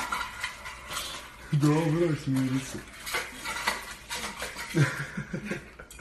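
A puppy eating from a metal food bowl, the bowl clinking and rattling under its nose and teeth over and over. About a second and a half in, a short wavering voice sounds for about a second.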